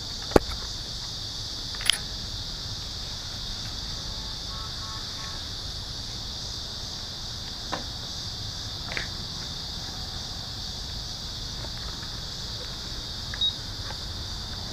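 Steady high-pitched insect chorus, with a few sharp clicks scattered through it.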